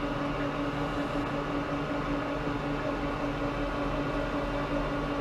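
LeBlond Regal servo shift lathe running under power with its power cross feed engaged, the spindle turning at about 234 rpm. It makes a steady mechanical hum with a constant tone.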